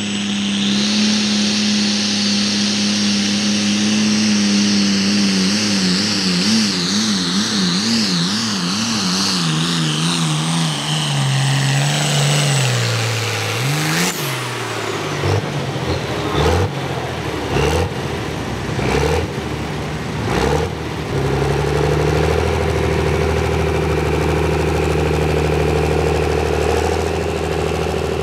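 Pulling truck's engine at full throttle, its pitch wavering for a few seconds, then falling as it winds down. A sharp crack comes about halfway through, then a few short revs, and the engine settles into a lower, steady idle.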